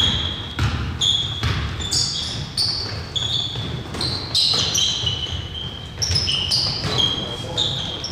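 Basketball game play: a ball bouncing on the court in an uneven rhythm of about two bounces a second, with short high-pitched sneaker squeaks between the bounces.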